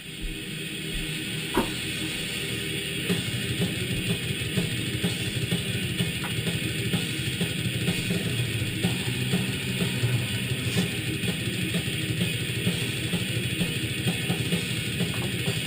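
Rock music with drums and guitar, swelling up over the first couple of seconds and then playing steadily.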